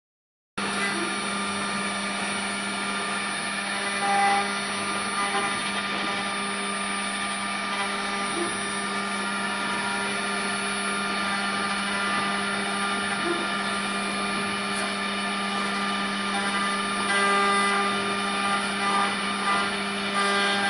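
Multi-spindle 4-axis CNC wood router running, its spindles giving a steady whine as an end mill cuts into square wooden blanks held on the rotary axes. It starts about half a second in, with a few brief louder swells as the cutter bites.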